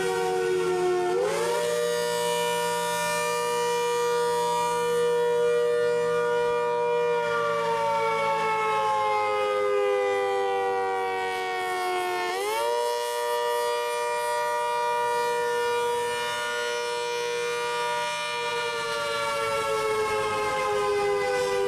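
ACA Hurricane 130 MKII outdoor warning siren sounding a wail during a test, its horn rotating. The pitch climbs quickly about a second in, holds, then slowly sinks, and climbs again about halfway through.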